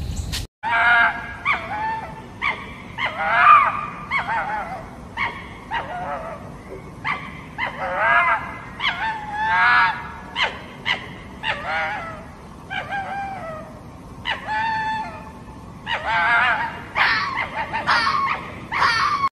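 Red fox calling: a long series of short, high, yelping barks, about two a second with uneven gaps, each call bending in pitch.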